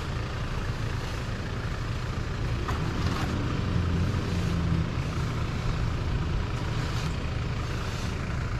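A 4WD's engine running steadily under load as the vehicle pushes through deep, soft sand, driven without low range because low range won't engage.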